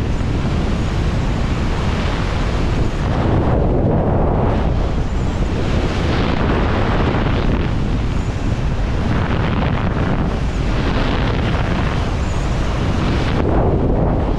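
Wind buffeting the microphone over loud rushing water, a steady roar that swells and eases every couple of seconds.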